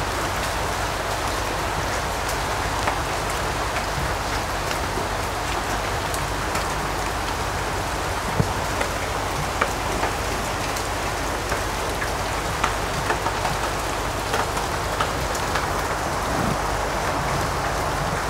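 Steady, even hiss throughout, with scattered light clicks and taps from parts of a compressor being handled on a workbench.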